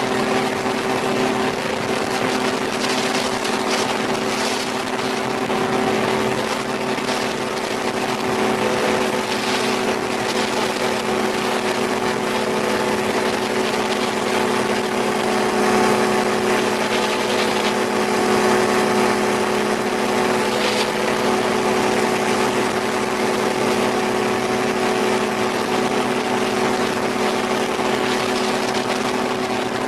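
Rotax 503 two-cylinder two-stroke engine of a light autogyro running at a steady speed.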